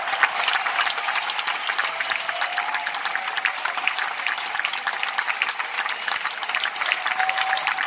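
Large theatre audience applauding steadily, a dense wash of many hands clapping, greeting a speaker's entrance.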